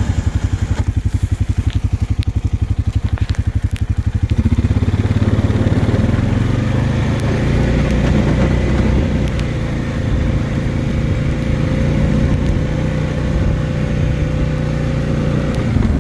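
Honda Rubicon 520 ATV's single-cylinder engine idling with an even low pulse, then pulling harder with a steady whine for about eleven seconds as the ATV pushes snow with its plow, and dropping back to idle at the very end.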